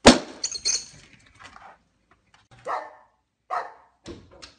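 A sudden loud bang at the very start that dies away over about a second, followed by two short dog barks.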